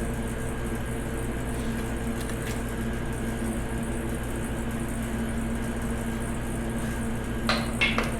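Steady machine hum in a workshop, with two or three light, sharp metallic clicks near the end as a piston ring is handled.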